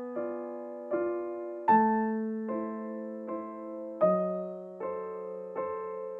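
Background music: slow piano chords struck about every 0.8 seconds, each note ringing and fading, with a stronger accent on every third beat like a waltz.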